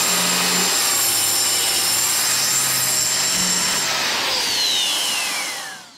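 Festool TS 55 track saw cutting through the edge of a pine tabletop with a steady high whine. About four seconds in the motor is switched off and its whine falls in pitch as the blade spins down.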